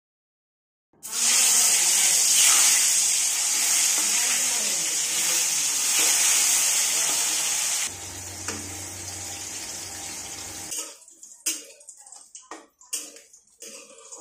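Turmeric-coated eggplant slices sizzling loudly in hot oil in a steel kadhai. The sizzle starts about a second in and drops away a little past halfway. Near the end a steel spatula clicks and scrapes against the pan as the slices are turned.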